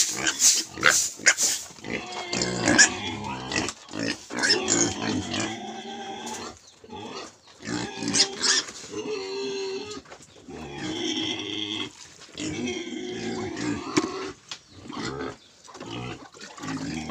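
Pigs squealing and grunting in a rapid string of cries, shrill and sharp in the first couple of seconds, then lower, drawn-out grunting calls.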